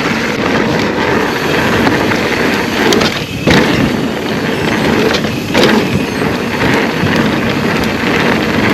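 Mountain bike rolling over a rough, bumpy trail: a steady rush of tyre noise, with the bike knocking and rattling sharply over bumps a few times.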